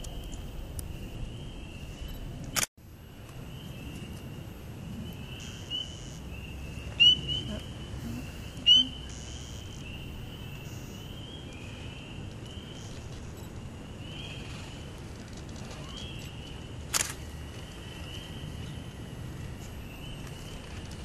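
A steady high-pitched chorus of frogs calling from the pool, with two louder, nearer calls about a second and a half apart midway. Two sharp clicks stand out, one about three seconds in and one later.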